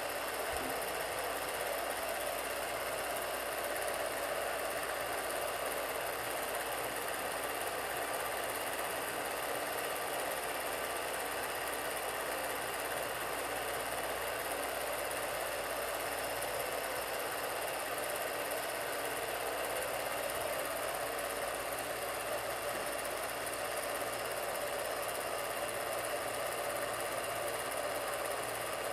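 A film projector running steadily, an unchanging mechanical whirr.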